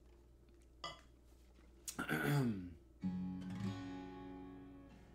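Acoustic guitar strummed once about three seconds in, the chord ringing out and slowly fading, just after a brief spoken word.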